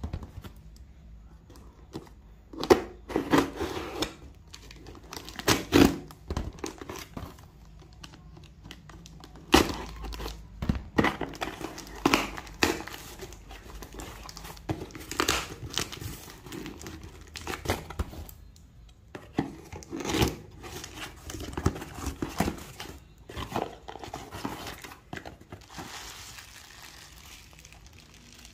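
A cardboard parcel being opened by hand: packing tape tearing and cardboard flaps crinkling and scraping, in irregular bursts with short pauses between.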